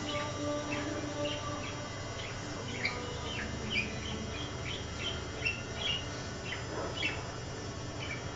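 Budgerigar chirping: a string of short, high chirps, about two a second.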